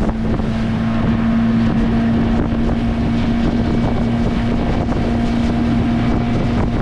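Motorboat engine running at a steady speed, one constant droning pitch, with wind buffeting the microphone.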